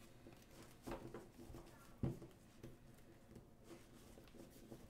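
Near silence, broken by a few faint clicks and rustles of playing cards being handled on a table, the clearest about one and two seconds in.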